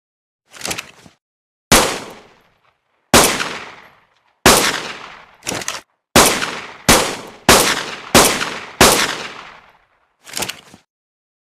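Fabricated pistol-shot sound effect: about eleven sharp shots, each with a tail that fades over up to a second, separated by dead silence. The shots come faster, about one every 0.6 s, in the middle, and a few are quieter.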